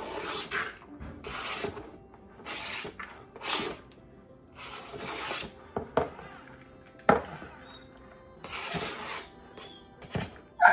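Chef's knife blade scraping diced onion off a flexible plastic cutting mat into a mixing bowl: a series of short rasping scrapes, about eight in all, with a few sharp taps in between.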